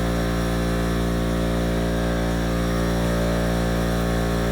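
Steady mechanical hum of a motor or engine running at constant speed, with an even, unchanging pitch.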